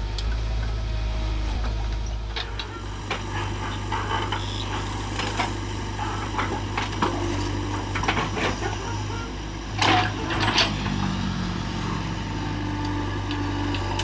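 JCB 3DX backhoe loader's diesel engine running steadily while the backhoe digs soil, with scattered knocks and scrapes from the bucket and arm, and two louder clanks about ten seconds in.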